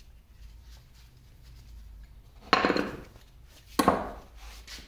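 Two short metallic clatters about a second apart, as a screwdriver and small metal parts are put down on a wooden workbench.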